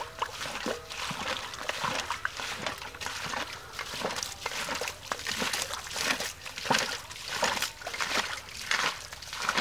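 Wet squelching and sloshing of hands and feet working through soft mud and shallow muddy water, with a hoe digging into the wet mud, in many short, irregular splashes.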